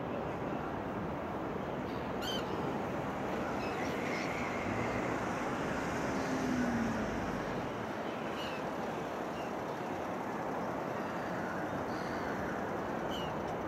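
Black-headed gulls giving three short, sharp cries that fall in pitch, over a steady hum of city noise.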